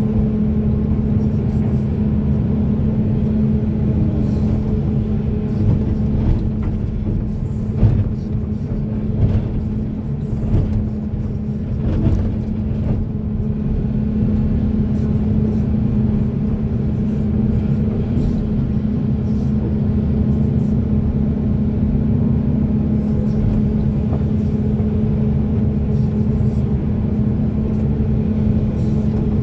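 Heavy hydraulic excavator's diesel engine running steadily under digging load, with a few short clunks of the bucket and boom working.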